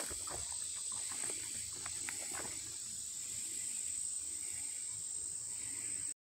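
Insects singing one steady high-pitched note, with footsteps scuffing on loose, freshly disked soil in the first few seconds. The sound cuts off suddenly near the end.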